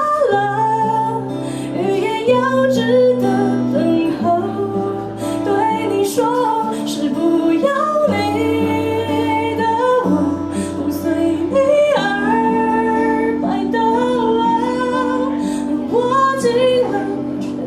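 A woman singing a slow song with guitar accompaniment, the melody wavering over long held chords.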